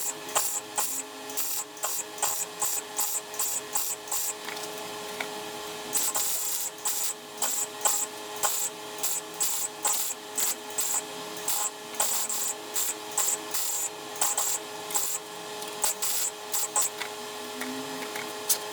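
Metalworking on a car body: short rasping strokes repeating several times a second in uneven runs, over a steady hum.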